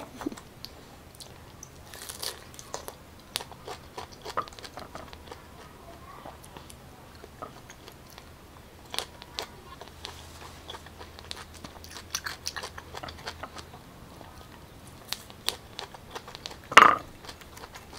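A person biting and chewing chunks of fresh raw pineapple close to the microphone, with many small clicks. One louder, short sound comes near the end.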